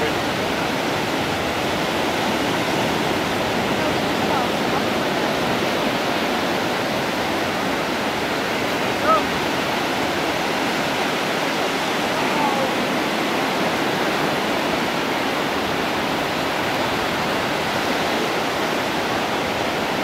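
Rough ocean surf breaking without a pause, a steady rushing noise. A single short, sharp sound cuts through about nine seconds in.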